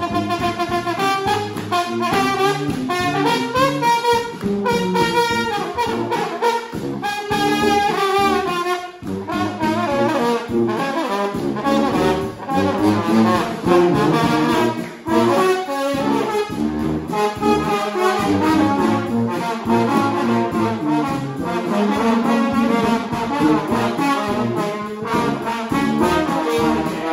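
Street brass band playing live: several horns play the tune together over a steady drum beat.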